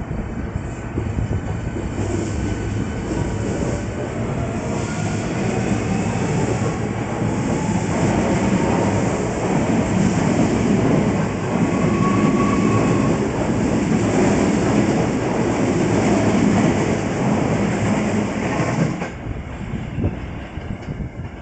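Hankyu 1300 series electric train pulling out of the station and accelerating past: the traction motors whine, rising in pitch as it gathers speed, over the rumble and clatter of its wheels on the rails. The sound drops away suddenly near the end as the last car passes.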